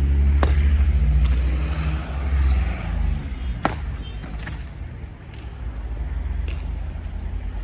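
A motor vehicle's engine running close by for the first few seconds, then fading away. A few sharp knocks sound over it, one just after the start and another in the middle.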